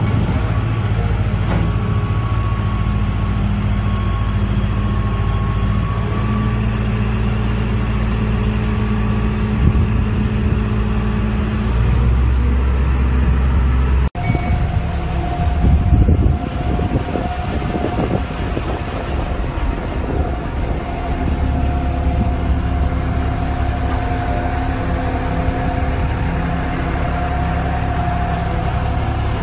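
Tadano GR300XL-1 rough-terrain crane's Cummins QSB5.9 turbodiesel engine running steadily, its note shifting about twelve seconds in. After a break partway through, a steady high whine sits over the engine.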